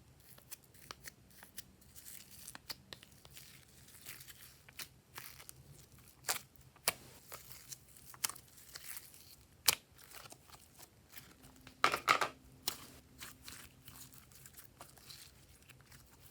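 Glossy slime being worked by hand: irregular sticky clicks and crackles, with the loudest burst of crackling about twelve seconds in.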